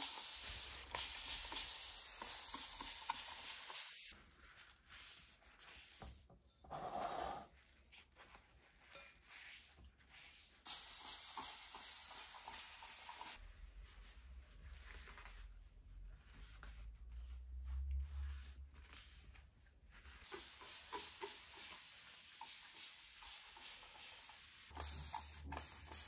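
Fine-mist spray bottle hissing in long continuous sprays of several seconds each, with a quieter stretch of several seconds in between.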